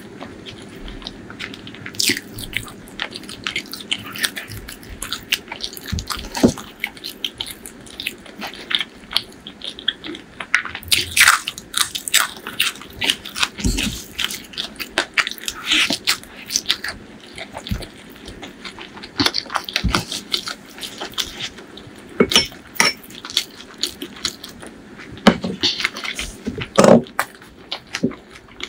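Close-miked eating of a chicken liver and gizzard curry meal with rice, green chillies and raw onions: wet chewing broken by frequent crisp bites and crunches at an irregular pace.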